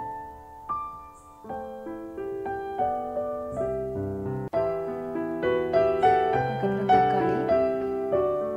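Background piano music: a slow melody of single notes that fills out with lower notes about halfway through.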